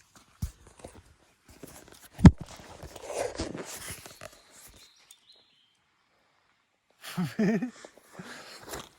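Handling knocks and rustling, with one sharp knock about two seconds in, then a short wavering voice-like call near the end.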